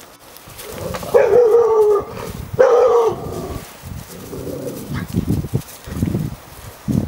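A mixed-breed dog gives two drawn-out barks, each just under a second, about a second in and again near three seconds, directed at a hanging boiler-suit dummy. After them come footsteps scuffing through dry leaf litter.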